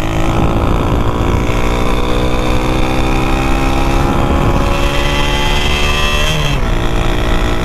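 Modified old Splendor motorcycle's single-cylinder four-stroke engine running under way, its pitch climbing steadily as it accelerates. The pitch dips sharply about six and a half seconds in, then carries on.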